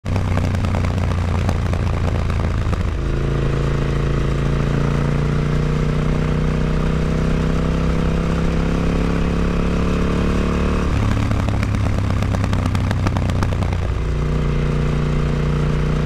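KTM 950 Adventure's V-twin engine running through an Akrapovic exhaust with its dB killer fitted. Its steady note jumps to a higher pitch about three seconds in and creeps slowly upward, drops back lower near eleven seconds, and rises again near fourteen seconds.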